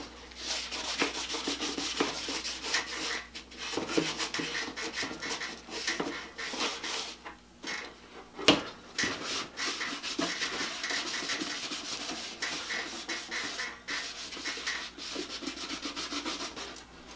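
A rag wet with acetone rubbed back and forth over a plastic outboard motor shroud, many quick scrubbing strokes with a few short pauses and one light knock about halfway through. This is the chalky, sun-damaged surface being wiped off before painting.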